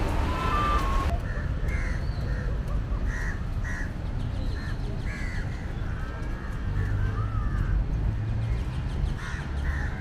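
Crows cawing over and over, short calls coming every second or so, over a low steady background rumble.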